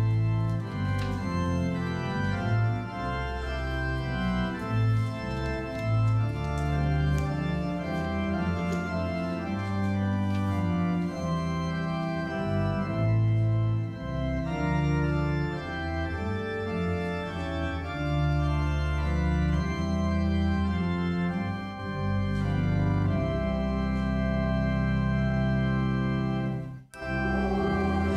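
Church organ playing sustained chords that change from one to the next over deep bass notes, with a brief drop-out just before the end.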